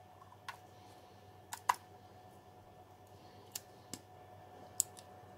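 Sharp little plastic clicks and snaps, about seven spread irregularly, from handling a GoPro Hero 7 Black action camera at its battery door, with two close together about a second and a half in.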